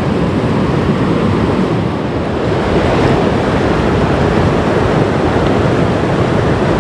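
The upper Danube in flood, its fast, swollen water rushing and churning in a loud, steady wash of noise.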